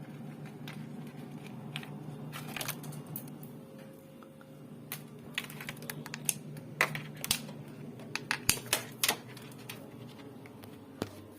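Handling noise: irregular light clicks and knocks, bunched into a quick run of sharper ones from about five to nine seconds in, over a steady low hum.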